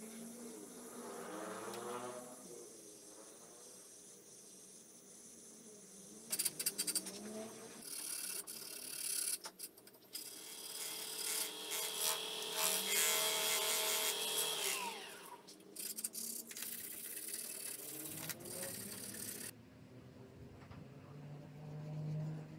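Sandpaper rasping against an algarrobo wood vase spinning on a lathe, a loud rubbing that lasts about thirteen seconds and stops near the end. It is preceded by the quieter whine of a small handheld rotary tool, wavering in pitch.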